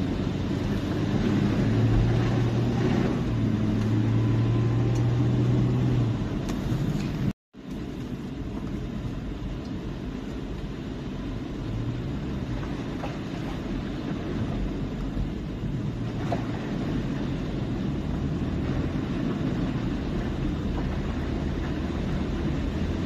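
Car driving slowly through floodwater, heard from inside the cabin: a steady low engine hum under a constant wash of tyre and water noise. The sound cuts out for a split second about seven seconds in.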